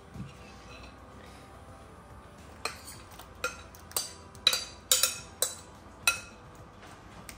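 A metal spoon clinking against a glass mixing bowl as a filling is scraped out into a glass baking dish: a run of about eight sharp, ringing clinks, starting a few seconds in.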